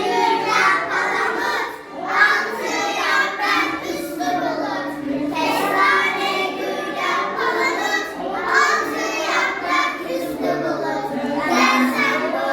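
A group of children singing a song together, without a break.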